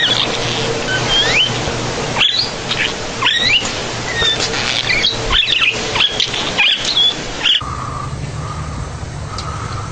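Rapid, high-pitched animal squeaks or chirps, many short calls that slide up and down in pitch. They stop abruptly about seven and a half seconds in, giving way to a steady low hum.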